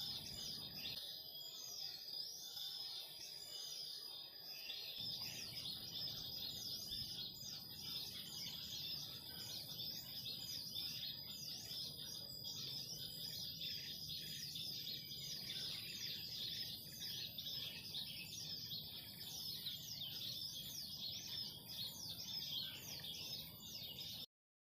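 Many small birds chirping and twittering continuously, faint, with a steady high hiss beneath; it cuts off abruptly near the end.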